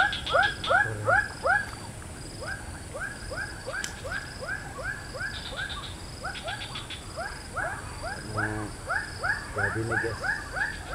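A chorus of animal calls: short falling notes repeated about three or four times a second, at two overlapping pitches, going on without a break.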